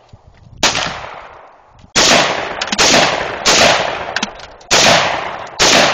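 AR-15 rifle fired six times in semi-automatic: one shot, a pause of more than a second, then five more at a steady pace of a little more than one a second. Each is a sharp crack with a fading tail.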